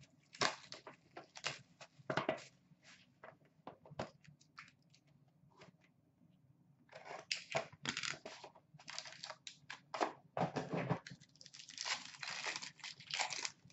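Plastic wrapping being torn and crinkled as a sealed box of hockey trading cards is unwrapped and opened. Short tearing sounds come in the first few seconds, a brief pause follows, then a longer, denser stretch of crinkling in the second half.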